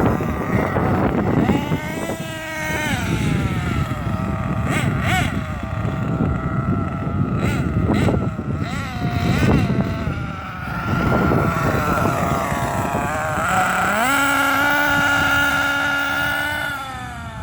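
Losi 8ight-T 1/8-scale RC truggy's motor revving up and down repeatedly as it is driven, holding a steady high pitch for a couple of seconds near the end before dropping off. Wind buffets the microphone throughout.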